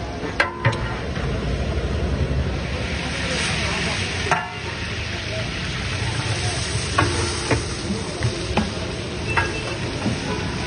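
Sliced onions and whole spices frying in hot oil in a large aluminium biryani pot: a steady sizzle that swells for a moment about three seconds in, with scattered sharp metal clinks from the stirring paddle against the pot.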